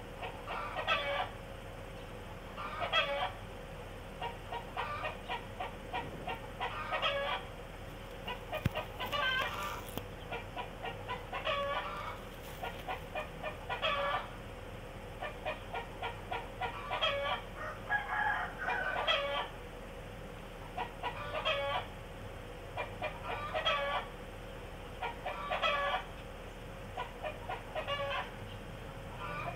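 Chickens clucking in short bursts of rapid clucks, about one burst every two seconds, over a faint steady hum.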